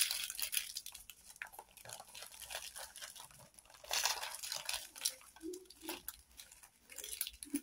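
Small plastic bags of diamond-painting drills crinkling and rustling as they are handled and packed away, in several short crackly bursts.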